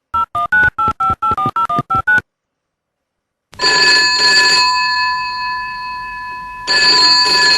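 A telephone number keyed in as a quick run of about eleven touch-tone beeps, each a pair of tones. After a second's pause a telephone bell rings in two long rings, the second starting about three seconds after the first.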